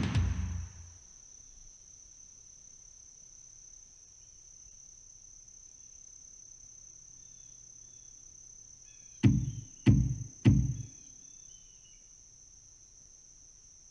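A steady high-pitched tone with a few faint chirps over a quiet background. About nine seconds in, three heavy, low thumps come about half a second apart.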